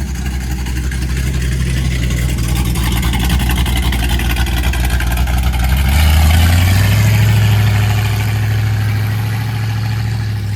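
A car engine running close by with a steady low hum; about six seconds in it rises to a higher, louder pitch, as if revved and held, and it eases off near the end.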